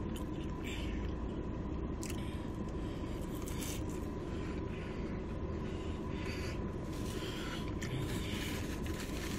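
Close-up eating sounds: chewing with many short, irregular crunchy and rustling noises, over a steady low hum and a faint steady tone.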